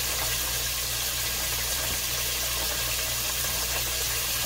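Steady hiss with a low hum underneath, unchanging throughout.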